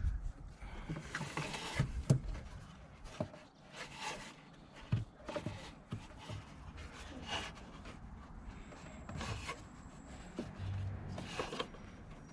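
Hands working at a car headlight housing after fitting a halogen bulb: irregular rubbing and scraping with scattered small clicks of plastic parts.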